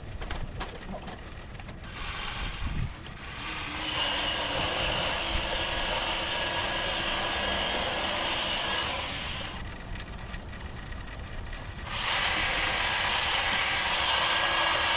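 Power hedge trimmer revved up to cutting speed in two long bursts, about four seconds in and again near twelve seconds, dropping back to a low idle between them.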